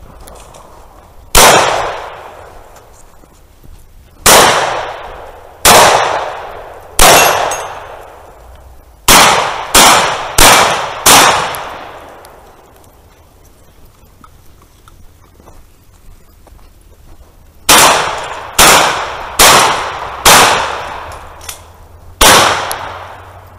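Thirteen gunshots from one shooter's gun, in uneven groups: four spaced a second or more apart, four quicker ones about two-thirds of a second apart, then five more. Each shot rings out with a long echoing tail.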